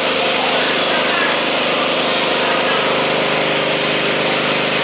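A machine running steadily: a constant drone with a hum and a hiss that does not change.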